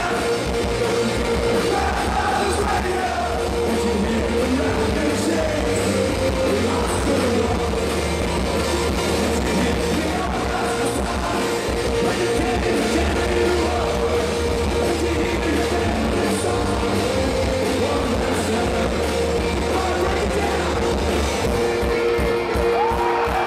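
Live rock band playing: electric guitars, bass and drums with a man singing lead into the microphone, at a steady, full level throughout.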